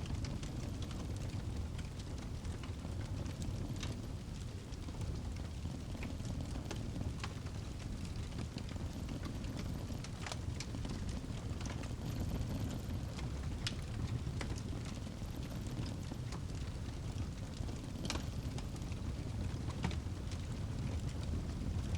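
Fireplace crackling, scattered sharp pops and snaps over a steady low rumble.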